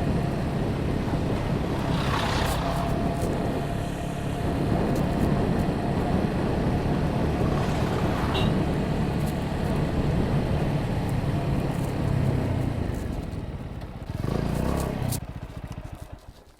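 TVS Apache 200 motorcycle on the move, its engine running steadily under a rush of noise, with a louder swell near the end before the sound fades out.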